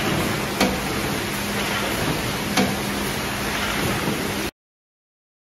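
Packaging-line conveyors running: a steady mechanical hiss and hum with a low motor tone, broken by two sharp knocks about two seconds apart. The sound cuts off suddenly near the end.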